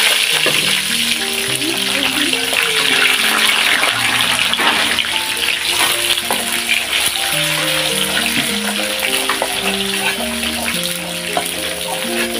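Jengkol (dogfruit) slices deep-frying in hot oil in a wok: a loud, steady sizzle with constant fine crackling. A spatula turns the slices now and then.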